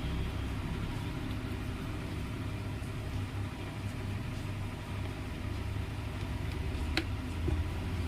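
Steady low mechanical rumble with no speech, with one sharp click about seven seconds in.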